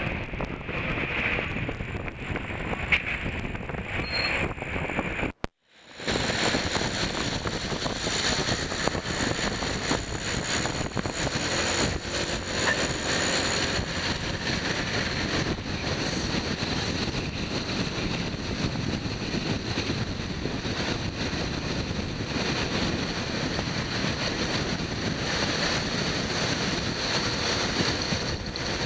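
Wind rushing over the microphone of a moving motor scooter, mixed with the scooter's engine and road noise. The sound drops out for a split second about five and a half seconds in.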